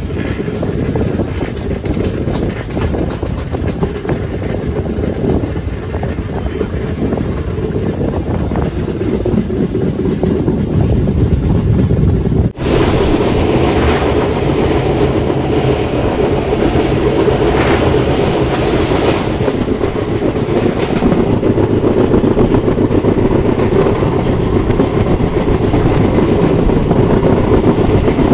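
Moving passenger train heard from an open coach window: steady rumble of wheels on the rails, with a clickety-clack over the rail joints. The sound breaks off for an instant about twelve seconds in and comes back a little louder and brighter.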